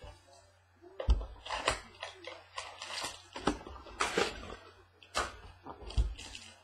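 Cardboard trading-card mini box and its wrapper being handled and opened on a tabletop: a series of knocks and rustles, the heaviest about a second in and near the end.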